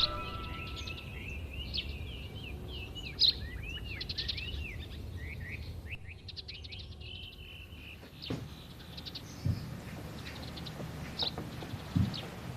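Small songbirds chirping and twittering in quick, high notes, with a brief lull about halfway through. Three dull thuds come in the second half.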